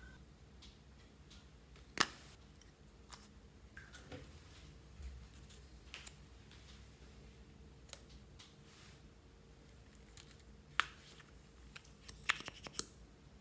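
Sparse sharp clicks and taps of small makeup containers being handled: one loud click about two seconds in, a few single clicks later, and a quick run of clicks near the end as the cap comes off a small glass bottle.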